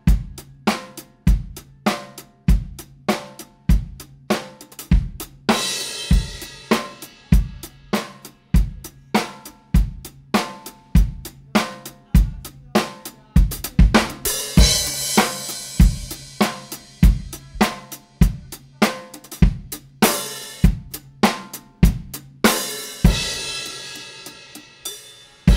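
Recorded drum kit playing a steady beat, kick and snare hitting about every 0.8 s under hi-hat, with crash cymbals opening up three times. The whole drum bus is running through the Waves MaxxBCL's digital limiter.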